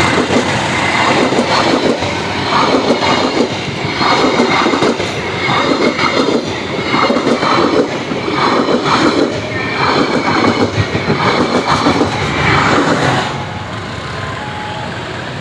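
Train passing close by, its wagons' wheels clattering over the rail joints in a loud, steady rhythm. The clatter stops abruptly about 13 seconds in as the last wagon goes by.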